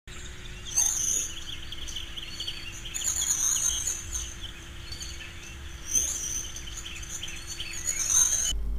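Birdsong: many birds chirping and twittering together, with louder song phrases about a second in, at three seconds and at six seconds, over a faint steady hum. It cuts off abruptly just before the end.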